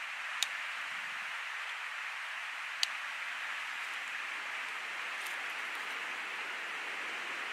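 Steady rush of running creek water, with two sharp clicks, one a little under half a second in and another nearly three seconds in.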